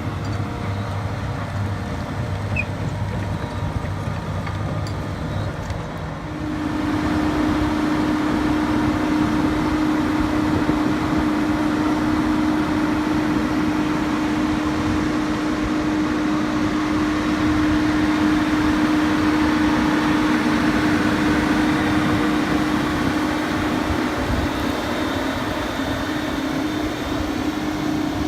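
Doosan DX180LC 18-ton excavator's diesel engine running at a low speed, then about six seconds in it steps up to a louder, steady drone with a strong held tone as the machine is worked.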